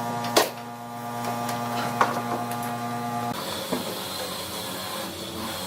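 Steady electric motor hum that changes abruptly to a different tone about three seconds in, with a sharp knock near the start and another about two seconds in.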